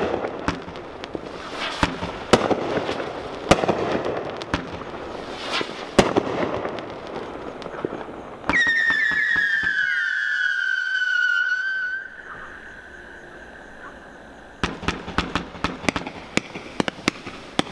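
Miracle 'Red, White & Boom' 40-shot 500-gram firework cake firing: a string of sharp bangs with crackling breaks. About halfway through comes one long whistle, falling slightly in pitch for about three seconds. Near the end there is a quick run of launch pops and crackle.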